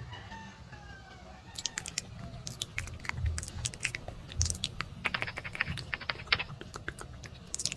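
Keyboard typing: quick, irregular key clicks starting about a second and a half in, with a dense fast run around five to six seconds.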